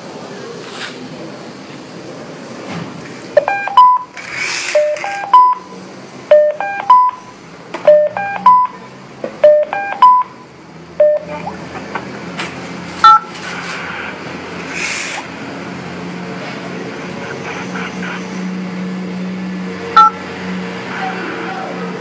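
Electronic telephone beeps: a run of short rising three-note tones, about ten of them over some eight seconds, then single touch-tone key beeps at about 13 s and again near the end as digits are keyed on a mobile phone's dial pad during a call to a GSM alarm panel.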